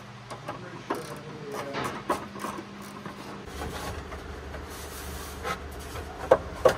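Rubbing, rustling and scattered light clicks and knocks of hand work on the tractor's wiring and fittings, with a low steady hum coming in about halfway.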